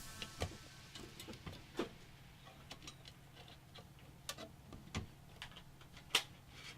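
Scattered light clicks and taps of computer parts being handled, irregular, with a few sharper clicks near the middle and end.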